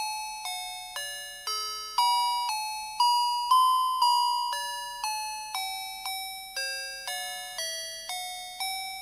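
A tinny electronic melody chip plays a simple tune in single beeping notes, about two a second. Each note starts sharply and fades away.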